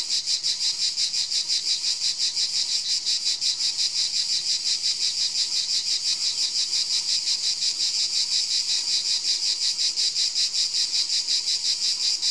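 Insects chirping outdoors: a steady high-pitched pulsing trill, about five pulses a second, going on without a break.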